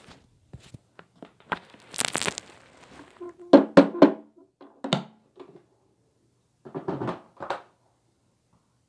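A heap of mixed small debris dumped onto carpet: a rustling spill about two seconds in, then a cluster of thuds and knocks, with a few more knocks near the end.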